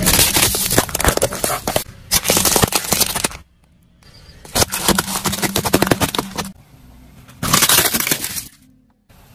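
A car tyre rolling over and crushing brittle plastic objects, first a tray of disposable lighters, with dense crackling and snapping. The crushing comes in three bursts separated by short quieter gaps.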